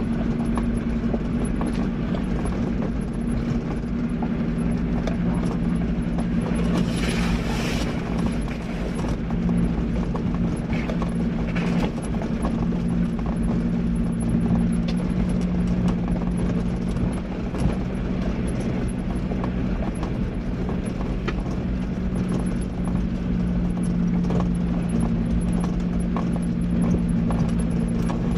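4x4 driving along a rough gravel track: a steady engine drone under the noise of tyres on loose stones, with small knocks and rattles throughout and a brief hiss about seven seconds in.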